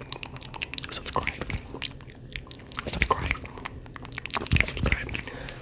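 A hacky sack being squeezed and crunched, its filling crackling in many small clicks, with a few louder thumps about three and four and a half seconds in.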